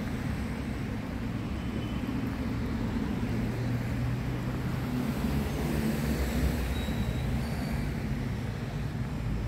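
Steady city road traffic from cars on the avenue alongside, a continuous low hum with no single vehicle standing out.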